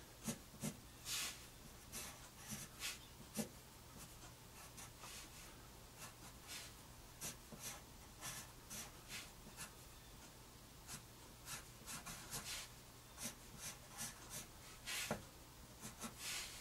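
Pencil scratching on paper in short, irregular strokes, some in quick runs, sketching a row of curved V shapes; a quieter spell falls about a third of the way in.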